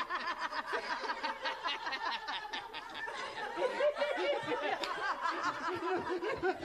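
Audience laughter: many people chuckling and laughing together, swelling and easing without a break.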